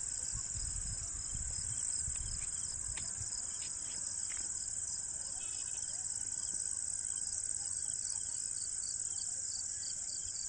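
Outdoor insect chorus: a steady, high-pitched shrill with a second, evenly pulsing insect trill just beneath it, with some low rumbling in the first couple of seconds.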